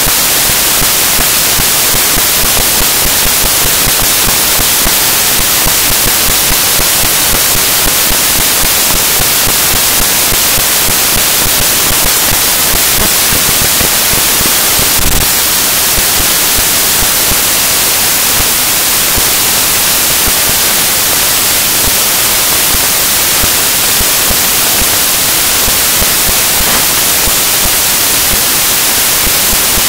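Loud, steady static hiss with no speech, and a single short click about halfway through.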